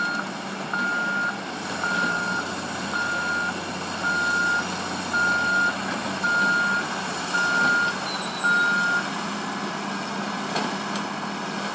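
Caterpillar tracked excavator travelling, its diesel engine running steadily under the travel alarm, which beeps on one high pitch about once a second and stops about nine seconds in. A few sharp clanks near the end.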